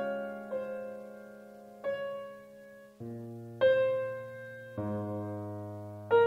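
Background music: slow, quiet piano, single notes and chords struck about once a second and each left to fade.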